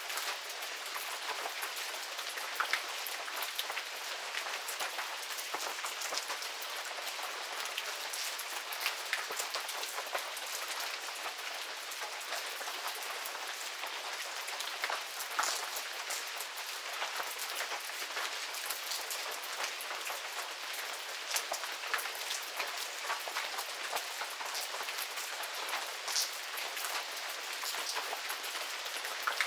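Steady medium rain falling in a garden, an even hiss dotted with close individual raindrop ticks and patters.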